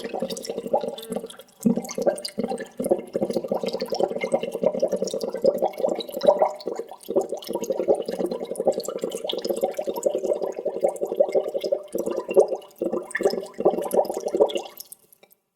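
Water bubbling steadily, a dense run of small gurgles and pops. It breaks off briefly about a second and a half in and again around twelve seconds, then stops shortly before the end.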